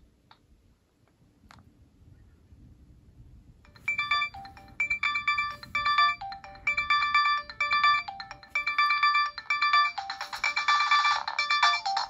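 A Nokia 3650 ringtone playing through the phone's speaker. After a few faint clicks, a bright electronic melody starts about four seconds in and repeats a short phrase of quick notes over and over.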